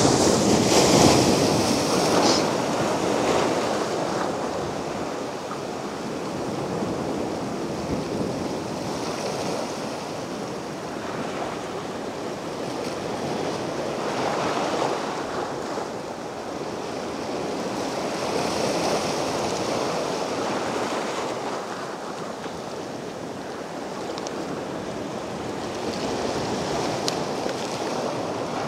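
Mediterranean surf washing onto a beach: waves break and draw back in slow swells every several seconds, the loudest near the start.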